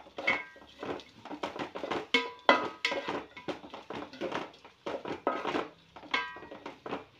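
A spoon scraping and knocking against a metal pot while stirring chopped vegetables, several quick irregular strokes a second, some leaving a short metallic ring.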